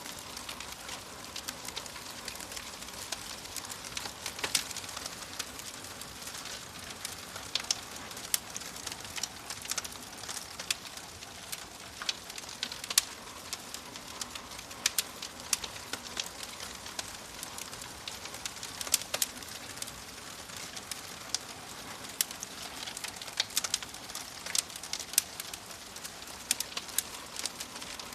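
Wood fire crackling in a fireplace: a steady hiss under frequent sharp pops and snaps, several a second.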